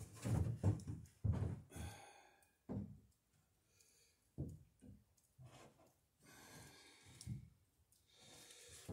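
Wooden rail knocking against a wooden dory's hull as it is shifted and pressed into place: a quick run of dull knocks at first, then scattered single taps, with one breathy sigh about two seconds in.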